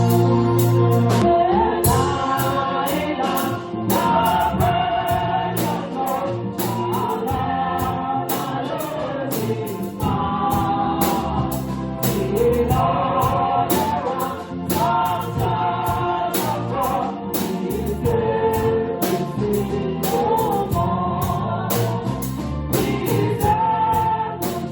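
Church choir singing a gospel hymn over a steady beat.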